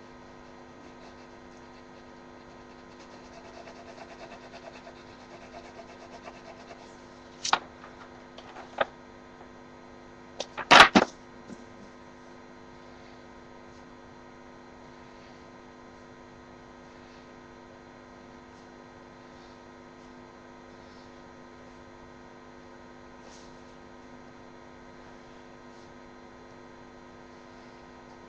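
Steady electrical hum throughout. A pencil scratches faintly on paper for a few seconds. A few sharp knocks follow, the loudest a quick cluster about eleven seconds in.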